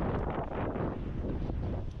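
Wind buffeting the microphone in uneven gusts, a rumbling noise strongest in the low end.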